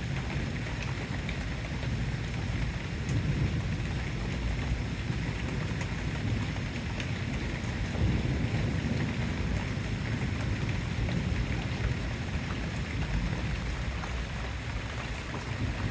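Steady rain during a thunderstorm, with a constant low rumble underneath and a few faint ticks of drops.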